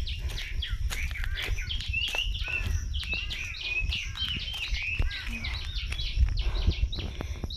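Many small birds chirping and calling in quick, overlapping succession, with short rising and falling notes, over a steady low rumble.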